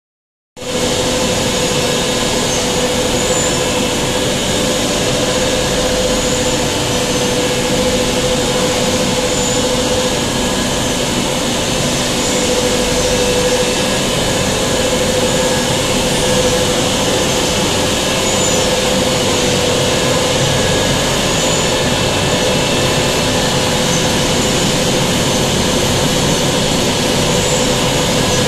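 Inline PCB cleaning machine running: a steady, loud hiss of its pumps and wash section, with a steady hum underneath.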